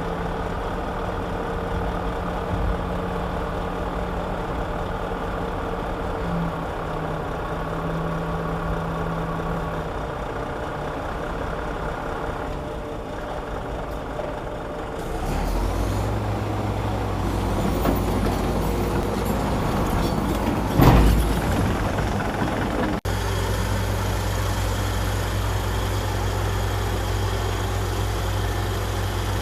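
Heavy diesel earthmoving machinery running steadily. About halfway the engine note changes to a deeper, louder drone, and a single loud knock comes about two-thirds of the way through.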